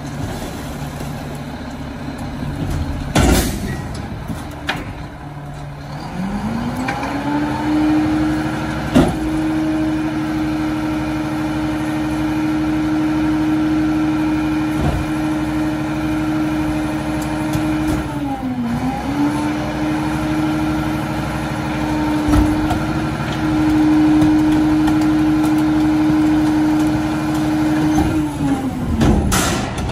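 Mack LR garbage truck's diesel engine rising from idle to a held higher speed, dipping briefly about two-thirds through and climbing again, then dropping back to idle near the end, with a few sharp knocks along the way. The raised engine speed drives the Leach rear loader's hydraulics through a lifting and packing cycle.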